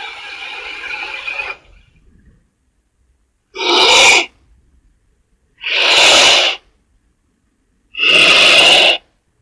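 Movie creature sound effects for a giant anaconda: a noisy sound fading out about a second and a half in, then three short breathy bursts, each about a second long and about two seconds apart.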